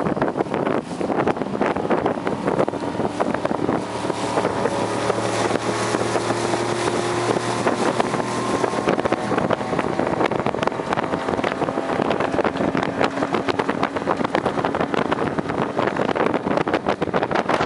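Motorboat engine running steadily under way, with wind noise buffeting the microphone.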